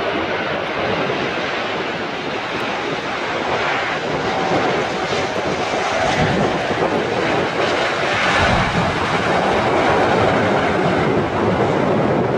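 Jet airliner engines passing, a steady rush that swells in the second half, with gusts of wind buffeting the microphone.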